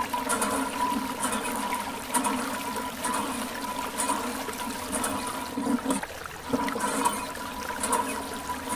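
Water from a thin plastic hose pouring and splashing onto mud-caked toy backhoe loaders, washing the mud off. The flow runs steadily, easing briefly about six seconds in.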